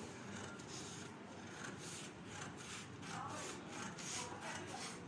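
Long-bladed tailor's scissors cutting through a large sheet of pattern paper: a steady run of repeated snips, about two a second, with the paper sliding and rustling.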